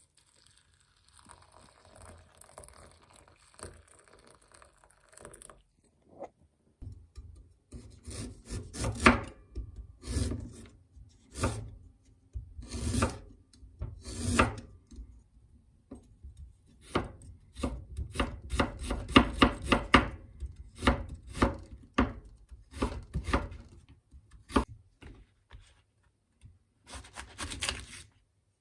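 Kitchen food preparation: bursts of repeated scraping, rubbing strokes against wood, several a second, with short pauses between the bursts.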